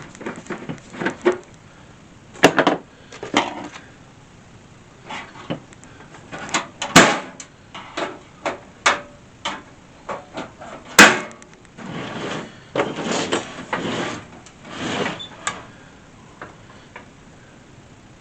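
Hands opening up a diesel air heater's casing: an irregular run of clicks, clacks and knocks, two of them sharp and loud, with a few seconds of scraping and rustling near the end.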